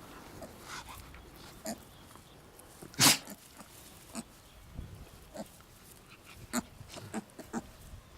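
A scatter of short animal sounds from a piglet and a dog, with one loud, sharp sound about three seconds in and smaller clicks and taps around it.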